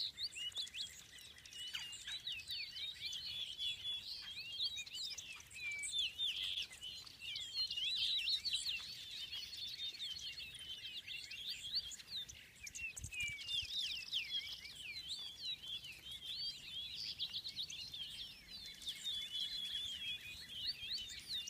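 A flock of small songbirds chirping and twittering, many short calls overlapping without pause, with a brief rapid trill about two-thirds of the way through.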